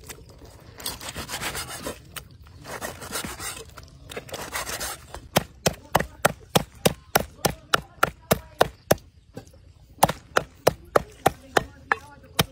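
Cleaver on a round wooden chopping block. First it slices and scrapes through raw pork. Then it chops in a steady run of sharp knocks, about three a second, with one short pause partway through.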